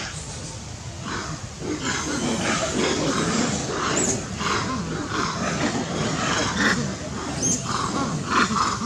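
A troop of macaques calling, with many short overlapping calls, some low and some high-pitched. They grow much busier about a second and a half in.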